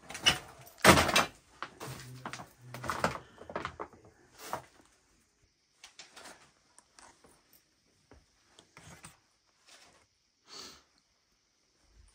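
Knocks and clattering in a room, a dense cluster of loud strokes in the first few seconds, the loudest about a second in, then only scattered faint ticks and taps.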